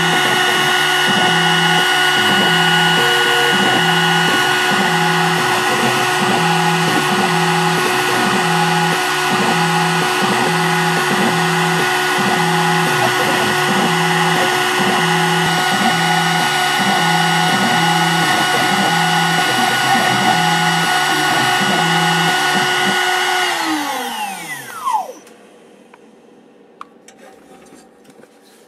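High-speed CNC router spindle (about 22,000 rpm) running with a steady whine while a 30-degree V-bit cuts copper-clad PCB, with a low hum pulsing about once a second. Near the end the job finishes: the spindle winds down with a falling whine and stops.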